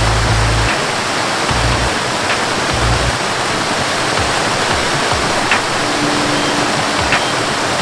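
Rushing water, as of a waterfall, a steady even rush with low notes beneath it in the first three seconds.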